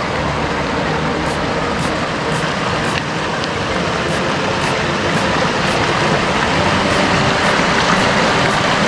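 Steady rush of river water over the McCloud River's falls, a loud even roar without let-up.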